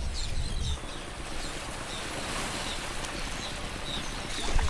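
Outdoor lakeside ambience: a steady rush of noise with a low rumble underneath, and faint short high bird chirps now and then.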